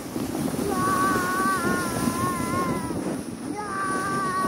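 Plastic sled sliding down a snowy trail: a steady scraping rush with wind on the microphone. Over it, the rider gives two long, high, wavering held cries, one about a second in and another near the end.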